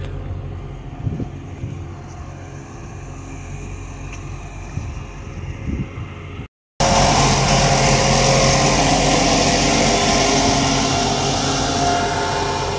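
Footsteps and outdoor background noise at first. After a cut about halfway through, a loud, steady hum takes over: a stationary diesel passenger train's engine running, with several held tones.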